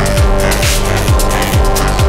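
Background electronic music with a fast, heavy kick-drum beat and held synth notes.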